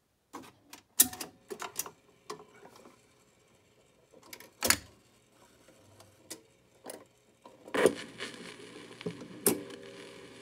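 Automatic record changer of a 1970s General Electric Wildcat portable record player cycling, with a series of mechanical clicks and knocks. A heavier thump comes about 4.7 s in as the 45 drops onto the platter. From about eight seconds in, as the tone arm sets down, a steady surface noise of the stylus in the lead-in groove begins.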